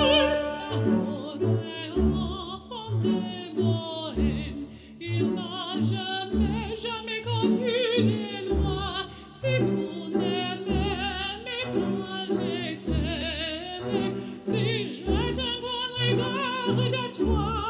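Background music: an operatic voice singing with wide vibrato over orchestral accompaniment.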